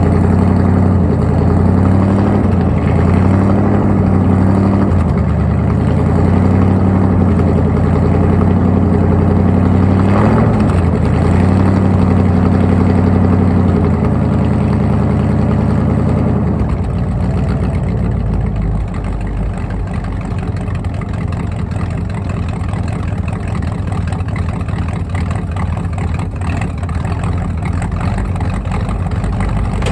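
Ford 302 (5.0 L) small-block V8 warming up after a cold start, heard at the exhaust. For the first half it runs at a raised idle that keeps rising and falling in pitch as the throttle is worked. About seventeen seconds in it drops back to a lower, rumbling idle.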